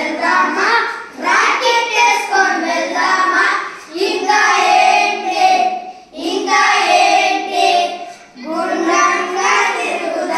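A group of young boys singing a Telugu children's action song together, in phrases of about two seconds with short breaks between them.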